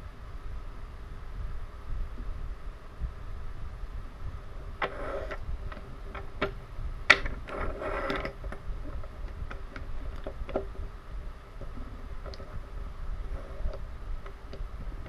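Wooden toy engines being handled and shuffled on a tabletop: a cluster of clicks and rattling about five to eight seconds in, then scattered light clicks, over a low steady rumble.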